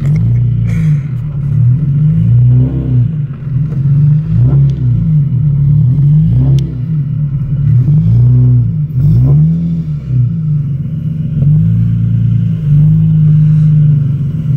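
Engine of an engine-swapped Nissan 350Z heard from inside the cabin on a first drive, its note rising and falling again and again as the throttle is worked, then holding steadier near the end.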